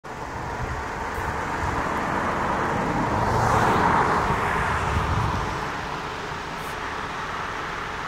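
A car driving past on the road, its noise growing louder to a peak about halfway through and then fading away.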